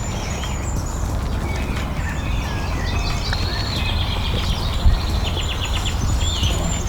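Songbirds chirping and singing: many short high calls, some sweeping up and down, with a quick run of repeated notes about halfway through. Underneath is a steady low rumble.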